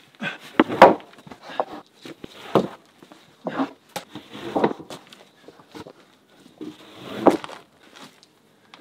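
Freshly milled wooden planks knocking and clattering as they are set down across a log roof frame, with footsteps in between. It is a string of irregular wooden knocks and thuds, the loudest about a second in and again near the end.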